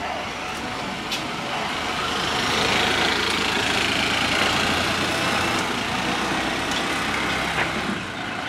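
A car engine running as the car approaches slowly, the noise swelling about two seconds in and easing off near the end.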